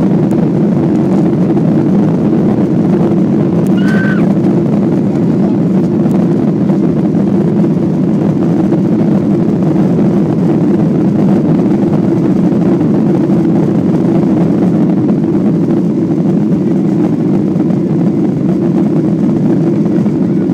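Steady, loud cabin noise inside a Boeing 737-800 in flight: the jet engines and rushing airflow heard through the fuselage. About four seconds in, a brief high tone sounds over it.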